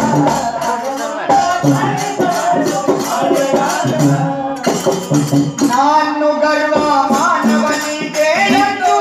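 A man singing a Kannada bhajan pada, a devotional folk song, over a steady percussion beat of short jingling strokes.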